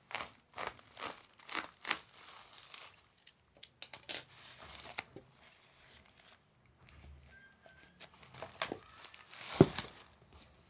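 Book parcel packaging being torn and crinkled open by hand, with short tearing strokes about twice a second for the first few seconds, then scattered rustles and clicks. A single sharp thump, the loudest sound, comes near the end.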